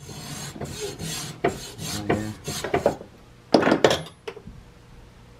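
Hacksaw blade cutting back and forth through a compressed activated-charcoal block held in a bench vise, a rasping stroke about every half second. About three and a half seconds in there is a louder clatter, and then the sawing stops.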